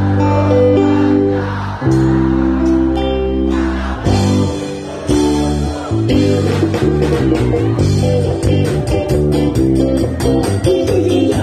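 Live band music: electric guitar and bass guitar playing held chords, breaking about six seconds in into a fast, even beat of about four strokes a second.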